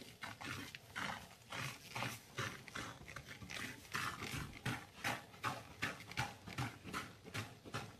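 White powder poured onto wet paste in a plastic bin, landing as a quick run of soft pats and rustles, about two to three a second.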